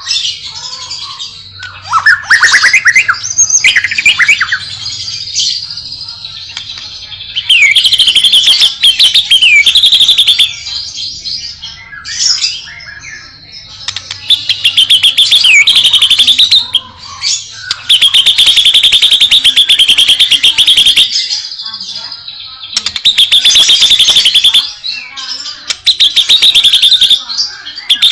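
White-rumped shama (murai batu) singing a long, varied song packed with fill-in phrases. It opens with sliding whistles, then gives several loud runs of rapid trills, each a few seconds long, with short pauses between them.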